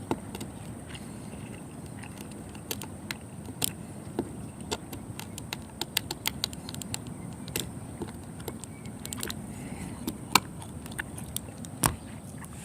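Irregular small clicks and taps of a hand tool on windshield glass, picking loose glass out of a rock chip before the resin repair, over a steady low rumble and a faint steady high tone.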